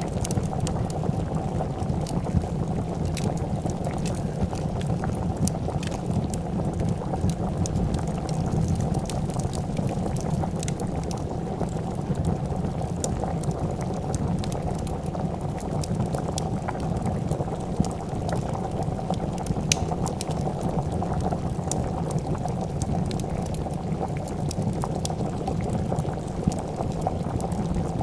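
A pot of soup boiling with steady, dense bubbling, alongside a wood fire crackling with scattered sharp pops.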